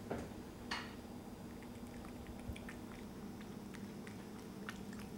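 A cat lapping milky liquid from a bowl: faint, irregular wet clicks of the tongue, a few a second, over a faint steady hum.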